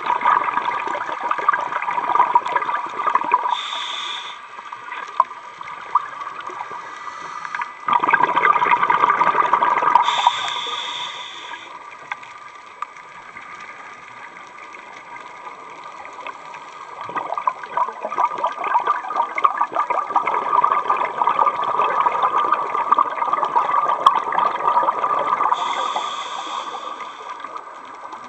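Underwater sound of a scuba diver breathing through a regulator: exhaled bubbles rush and crackle in swells that come and go, with a brief higher hiss three times.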